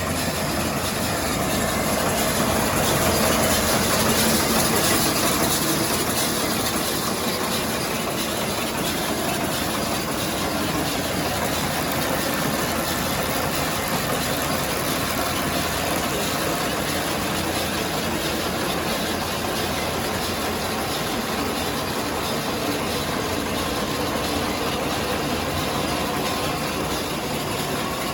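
Tractor running a Kuhn VB2160 round baler: steady engine and machinery noise that swells slightly a few seconds in.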